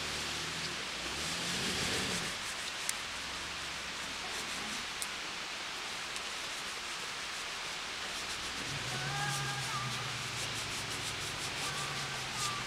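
Jeep Wrangler JK Unlimited's engine running at low revs as it crawls on a rock ledge, faint under a steady hiss; the engine note comes up a little for a few seconds near the end.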